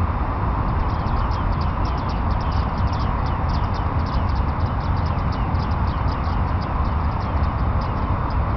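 Bearded tits calling: a rapid run of short, high, downward-slurred notes over a steady low rumble.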